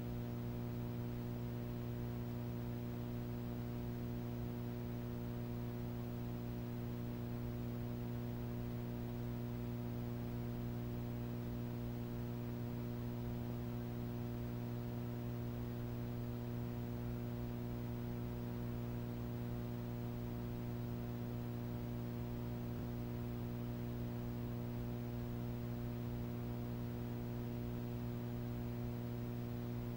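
Steady low electrical hum with a stack of overtones, over a faint hiss.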